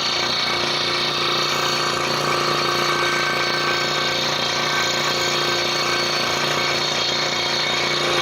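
Scroll saw running steadily, its reciprocating blade cutting a wooden jigsaw puzzle, with a steady hum and a fast, even chatter.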